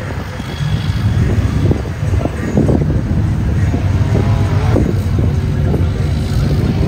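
Motor vehicle engine running steadily, growing louder about half a second in.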